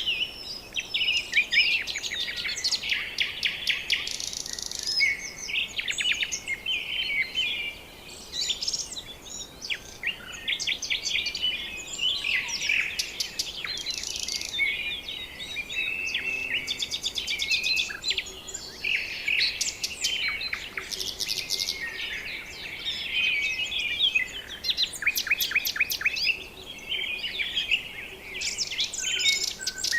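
A dense chorus of many birds calling over one another, with quick chirps and rapid trills.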